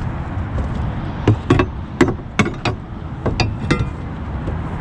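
Wooden dunnage boards being handled on a flatbed trailer deck: about nine sharp knocks in a quick irregular run, some with a short ring.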